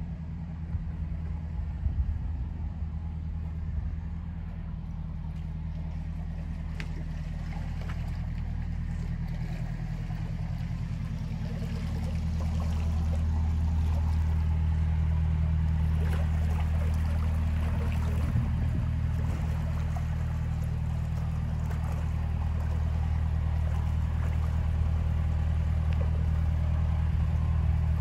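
Narrowboat's Beta marine diesel engine running steadily at low cruising speed, with a deep, even note that grows louder about twelve seconds in as the stern comes close.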